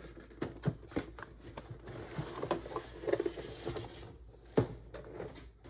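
A cardboard box sleeve sliding off a boxed collectible figure, with light scraping and rustling of cardboard against the plastic blister tray and small handling clicks. There is one sharper knock about four and a half seconds in.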